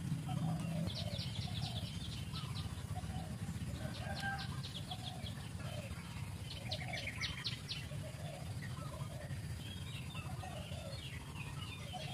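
Birds calling outdoors: three runs of rapid, high clicking trills about a second each, with fainter chirps near the end and a repeated lower call throughout, over a steady low rumble.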